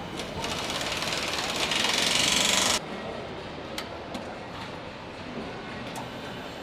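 Assembly-line tool noise: a hiss that grows for nearly three seconds and cuts off suddenly, then scattered sharp clicks and knocks.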